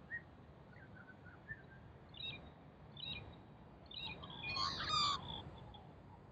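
Australian magpies calling: a few short, spaced chirps, then a louder warbling call of several notes together about four and a half seconds in.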